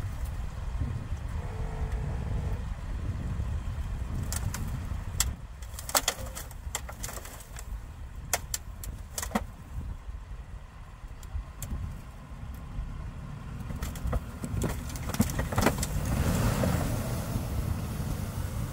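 Toyota Land Cruiser Prado's engine running at low revs as the SUV crawls out of a washout under the snow, with sharp cracks and knocks scattered through it. The engine note grows louder and fuller near the end.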